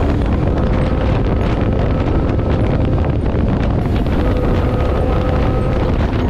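Wind buffeting the GoPro's bare built-in microphone while a motorcycle cruises at a steady road speed, a steady rumble and hiss with the engine's note faintly underneath and holding steady.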